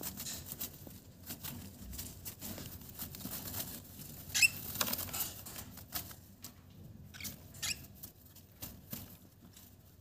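Baby cockatiels scrambling and flapping their wings on wood-shaving bedding in a cardboard box: a continuous pattering rustle of shavings, claws and wings. A few short, high, wavering chirps break through, the clearest about four and a half seconds in and again near eight seconds.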